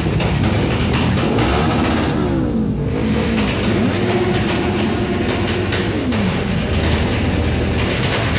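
Car engine revving: its pitch climbs, drops, climbs again, holds steady for a second or so and falls back to idle, over a steady low rumble.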